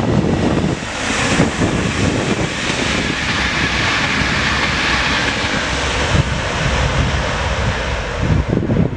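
PKP Intercity Pendolino (ED250) electric train passing at speed over a steel truss bridge: a loud, steady rush of air and wheel noise that builds about a second in and eases near the end. Wind buffets the microphone throughout.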